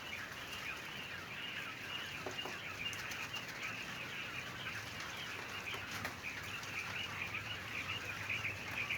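A large flock of caged laying quail calling continuously, a dense high-pitched chatter of many birds at once, with a couple of sharp clicks about three and six seconds in.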